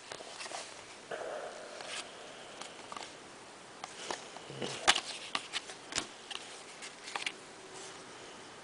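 Trading cards being handled and flipped through: a brief sliding rub of cards against each other, then scattered light clicks and taps.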